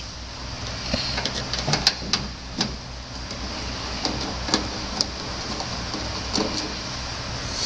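Scattered light clicks and taps of a desktop computer tower's screws and metal case being handled, over a steady low hum.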